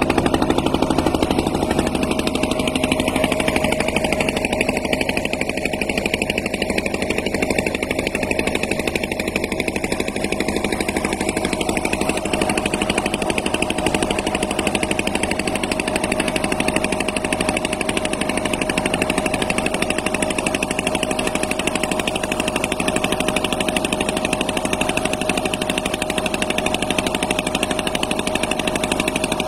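Motorboat engine running steadily as the boat moves along.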